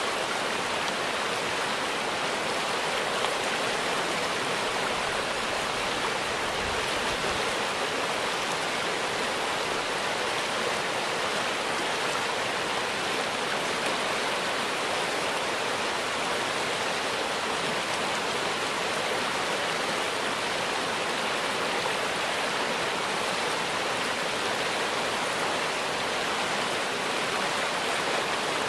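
Fast, shallow river rushing over a rocky riffle: a steady, even rush of water that does not change.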